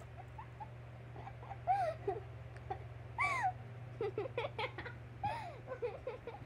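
Girls giggling: short high-pitched squeals of stifled laughter that come and go in little bursts, over a steady low hum.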